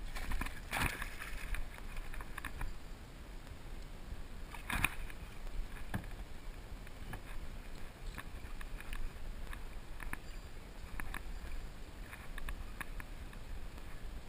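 Knocks and splashing around a plastic kayak as a hooked bass is fought beside the boat, with two louder knocks about one and five seconds in and scattered lighter clicks over a low rumble.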